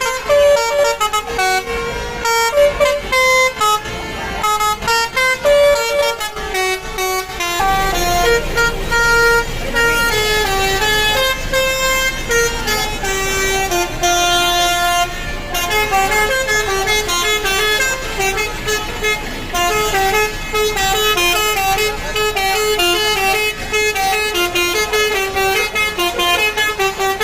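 Basuri telolet bus horns, multi-trumpet musical horns, playing a quick stepping melody of several notes. From about eight seconds in a low engine rumble runs underneath.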